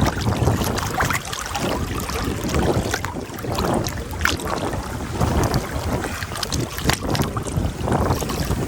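Wind buffeting the microphone over moving river water, a steady rushing noise with low rumble and irregular small splashes.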